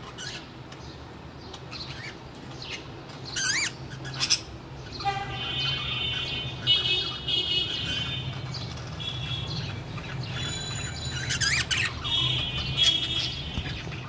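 Pet budgerigars chirping and warbling in a cage, with a sharp squawk about a third of the way in and another near the end.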